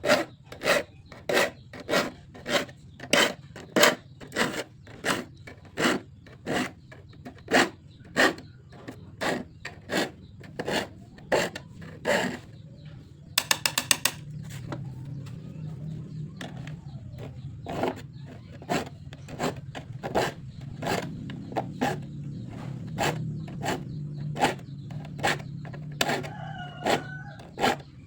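A file sharpening the teeth of a hand saw: rhythmic rasping strokes, about two a second, slowing to about one a second in the second half. A quick run of clicks comes about halfway, a low hum lies under the later strokes, and a chicken calls briefly near the end.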